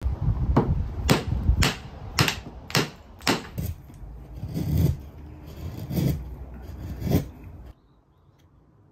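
Sharp knocks on wood, about two a second, then three slower, softer ones. The sound cuts off suddenly a little before the end.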